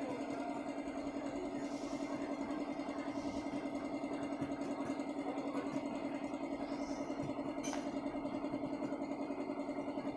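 A small engine idling steadily close by, with a fast, even pulse, and a single light click about three-quarters through.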